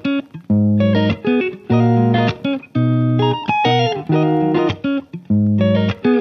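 Background music led by plucked guitar, in short phrases about a second long with brief gaps between them.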